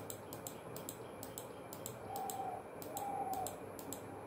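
Quiet room tone with a faint, rapid, regular ticking, about five clicks a second, and two short faint tones about two and three seconds in.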